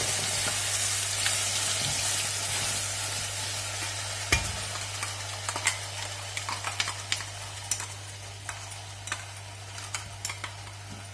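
Wet onion, tomato, ginger and garlic paste dropped into hot oil with whole spices and sizzling, loudest as it first goes in and fading gradually as the oil cools under it. A steel spoon clicks and scrapes against the steel mixer jar as the paste is scraped out.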